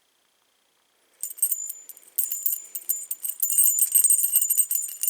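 Metal keys jangling and clinking together as they are handled, starting about a second in: a dense run of bright, high-pitched jingles.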